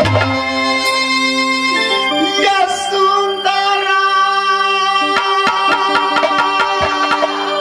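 Live Indian folk music: a singer's voice over long held melodic notes and hand-drum strokes, the drumming growing denser in the second half.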